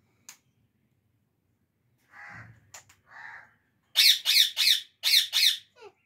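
Indian ringneck parakeets squawking: two softer calls, then about four seconds in a run of five loud, harsh squawks in quick succession, ending with a short falling note.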